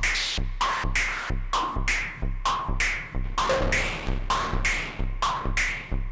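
Roland S-1 synthesizer playing a sequenced electronic pattern: a repeating low bass note under short bright notes with swept filters, about two notes a second.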